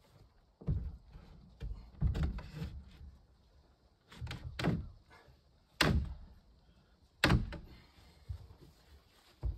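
A series of heavy knocks and thuds at uneven intervals, about eight in all, each dying away quickly; the loudest come about six and seven seconds in.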